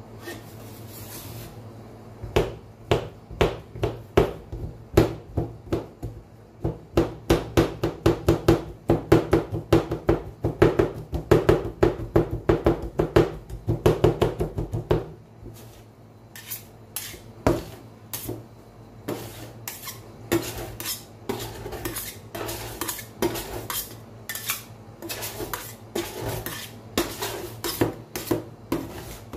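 Metal spatula blades chopping chocolate pieces into liquid ice cream base on a steel cold plate, striking the plate about three to four times a second. About halfway through the chopping stops, and slower scraping and tapping follow as the mix is worked together. A steady low hum runs underneath.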